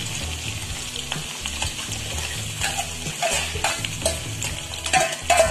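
Chopped small onions scraped from a steel bowl into hot oil in a metal kadai, sizzling as they land, while a steel ladle scrapes and clinks against the bowl and pan, more often in the second half.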